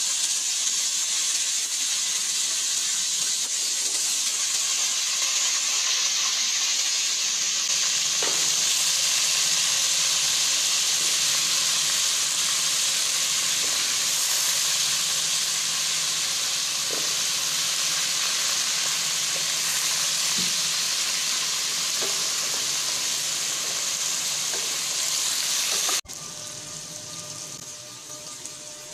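Cubed potatoes frying in hot oil with onions in a cooking pot: a loud, steady sizzle. Near the end it drops suddenly to a quieter sizzle.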